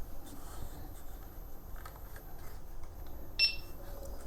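A single short electronic beep about three and a half seconds in, against faint handling ticks.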